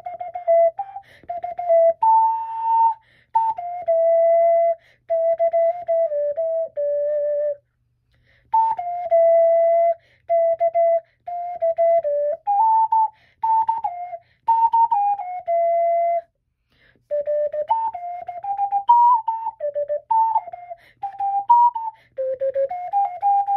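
Ocarina, a blue Zelda-style model, playing a song's sung melody: a single clear, whistle-like line of stepping notes in phrases, with short breath pauses about eight and sixteen seconds in.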